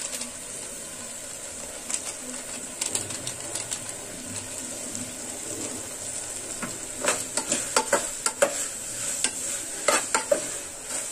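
Onion-tomato masala, with ground spice just added, sizzling in oil in an aluminium pressure cooker as it is stirred. The stirring utensil scrapes and clinks against the pot now and then, and much more busily in the second half.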